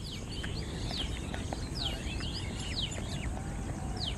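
Small birds chirping, with many short, high calls that sweep sharply downward, several a second, over a steady low background rumble.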